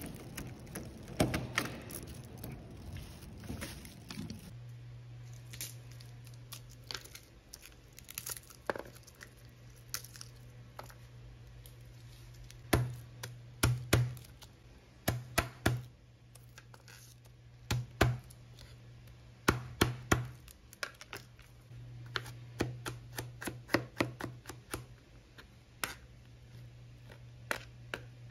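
A key turning in a door-knob lock, with a few sharp clicks, then a kitchen knife crushing and chopping garlic cloves on a plastic cutting board: sharp knocks in irregular clusters over a low steady hum.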